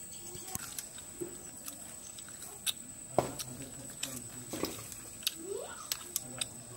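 Close-up eating sounds of a man chewing a handful of rice and fish curry eaten by hand: scattered wet lip smacks and mouth clicks, the sharpest about halfway through.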